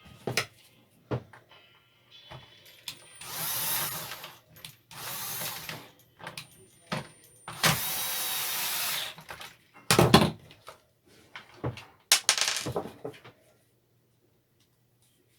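Workshop tool and parts handling: sharp clicks and knocks, with three bursts of steady hissing noise, each lasting about one to one and a half seconds.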